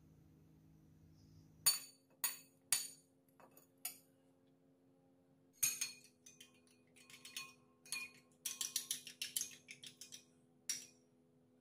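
A metal spoon clinking against china: a few separate taps about two seconds in, then a quick run of clinks from about six seconds as egg is beaten in a bowl.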